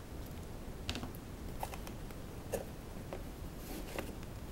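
Camcorder accessories and their packaging being handled: a few faint, scattered clicks and a brief rustle near the end.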